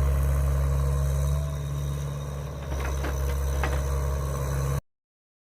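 Heavy earthmoving machine's engine running steadily, with a few knocks about three seconds in. The sound cuts off suddenly near the end.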